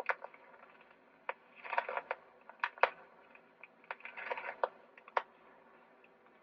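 Clicks and short rattles from the mechanism of a 1962 Edison Voicewriter dictation machine being pushed along by hand, with a cluster of rattling every two to three seconds between single sharp clicks. The carriage advances only when pushed, a sign that it is sticking.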